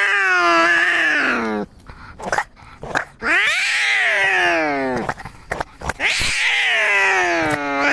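Cats yowling in a fight: three long, drawn-out wails, each rising and then sliding down in pitch, with short pauses between them.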